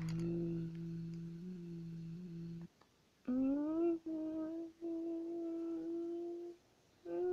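A person humming wordless long held notes: a low note that stops about two and a half seconds in, then after a short pause a note that slides up and is held, broken twice, and another held note starting near the end.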